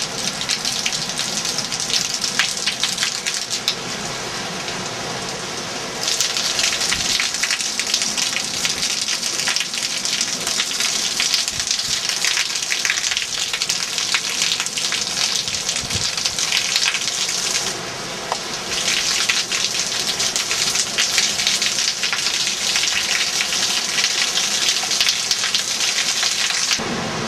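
Heavy hurricane rain pouring down, a dense hiss full of close spatters. It grows louder about six seconds in and dips for a moment later on.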